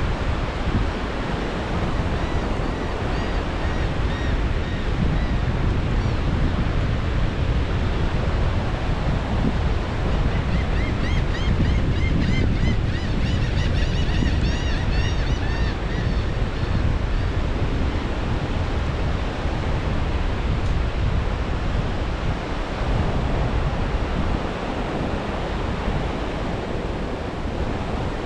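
Ocean surf breaking steadily on a beach, with wind buffeting the microphone as a low rumble. Faint high chirps repeat twice over the stretch.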